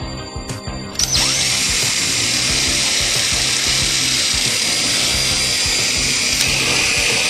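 Cordless drill starting about a second in and then running steadily, drilling a rivet hole up from underneath into a Polaris Pro RMK snowmobile's front board. Background music plays under it.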